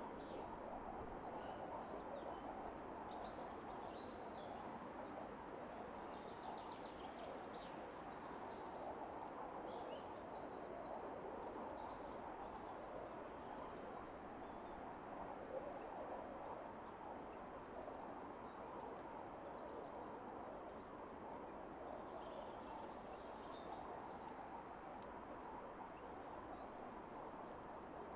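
Faint, scattered short bird chirps over a steady outdoor background hiss, with a few sharp clicks here and there.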